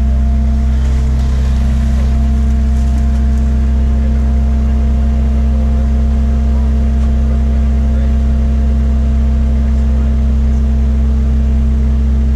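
New Holland grape harvester running steadily while picking, a constant low engine drone with a few steady humming tones above it, heard from inside the cab.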